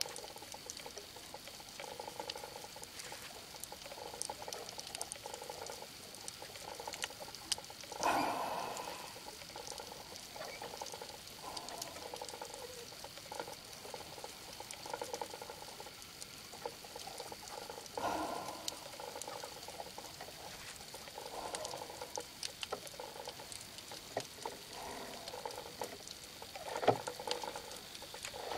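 Underwater ambience picked up by a camera in a waterproof housing: a steady crackle of scattered sharp clicks over a faint steady high tone. Muffled swishes of moving water come and go, swelling louder about 8, 18 and 27 seconds in.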